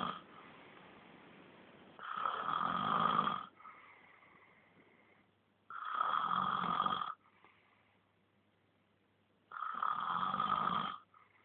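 A sleeping pet snoring: loud snores about a second and a half long, coming roughly every three and a half to four seconds, three in all after the tail of one at the very start, with faint breathing between them.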